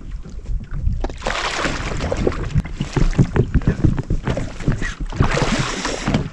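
Wind rushing over the microphone in two strong gusts, over water slapping against a jet ski's hull.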